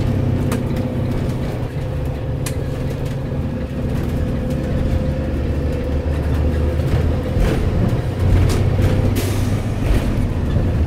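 School bus's 2016 Cummins ISB six-cylinder turbo-diesel heard from the driver's seat, running steadily on the road with a low drone and a thin steady higher tone over it until about nine seconds in; the exhaust brake is not engaged.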